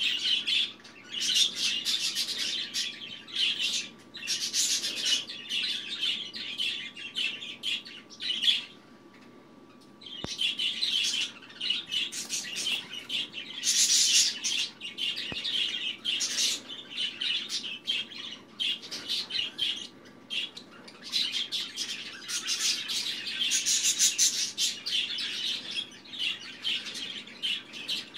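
A young blue budgerigar chirping and chattering in rapid, high-pitched runs. It breaks off for a couple of seconds about a third of the way through.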